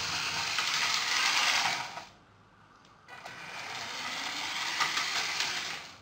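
LEGO 9V train motor running as the locomotive moves along the plastic track. It cuts out about two seconds in, starts again with a click a second later, and stops again near the end.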